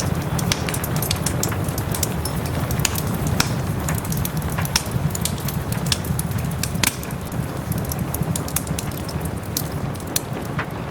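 Wood fire crackling with many sharp pops and snaps at irregular intervals, over a steady hiss of soft rain and a low rumble.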